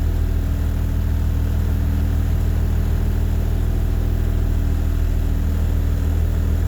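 Blue Bird bus engine idling steadily.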